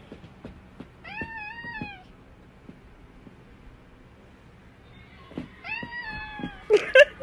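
Domestic cat meowing: one drawn-out meow about a second in and another near the end, followed at once by two short, loud cries. A few faint knocks in between.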